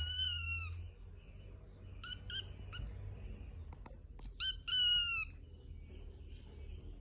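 Kitten mewing: a run of high, thin mews that fall slightly in pitch, one held, then short ones in pairs about two and four and a half seconds in.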